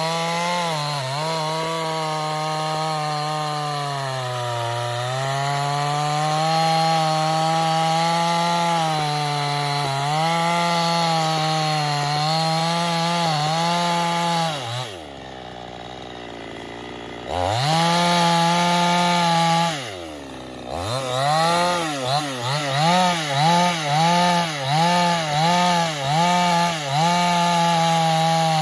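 Two-stroke chainsaw running at full revs through a large acacia trunk, its note sagging under the load of the cut. About halfway through it drops to idle twice. It is then blipped up and down about six times in quick succession and settles back to a steady high speed.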